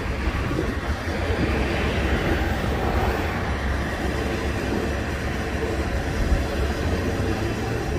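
Kansas City Southern streamlined passenger cars, a dome car among them, rolling past on the rails: a steady rumble of steel wheels on track.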